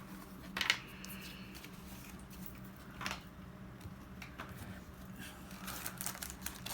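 Trading cards being handled: a few light clicks and soft rustles as Pokémon cards are slid and set down. A low steady hum runs underneath.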